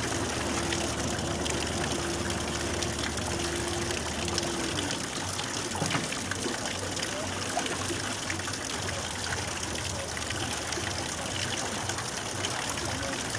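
Water rushing steadily through a river lock, a constant hiss. Under it a steady hum stops about five seconds in, and there is a single knock about six seconds in.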